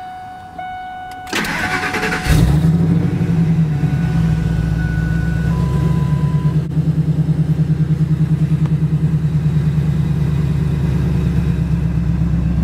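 Supercharged V8 of a Ford SVT Lightning pickup starting on the key: about a second of starter cranking just over a second in, then it catches and settles into a loud, steady idle with an even, rapid pulse.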